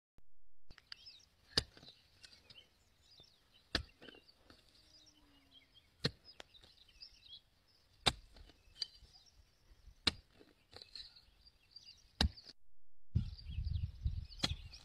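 Hand hoe striking into soil, one sharp chop about every two seconds as the ground is broken up, with birds chirping in the background. A low rumble comes in near the end.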